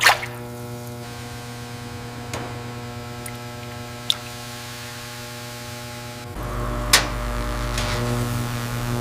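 Background music built on steady held synthesizer tones, which deepens with a low bass layer past the middle. A few sharp clicks sound over it, the loudest near the end.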